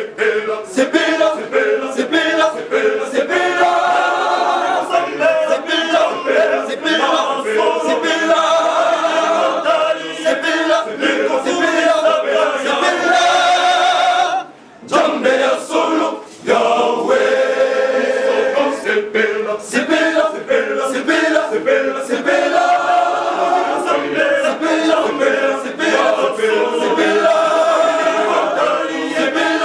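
Men's choir singing a cappella, breaking off briefly twice about halfway through.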